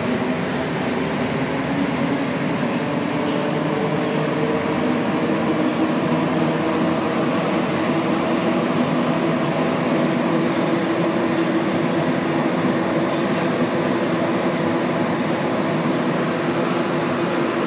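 Rubber-tyred Montreal Metro MPM-10 Azur train running at speed between stations, heard from inside the car: a steady rush of tyres and air with the hum of the traction motors, its pitch drifting slightly.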